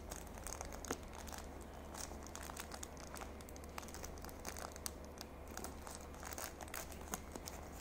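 Faint crinkling and crackling of a thin wrapper being handled and peeled open by hand, in many small irregular crackles over a low steady hum.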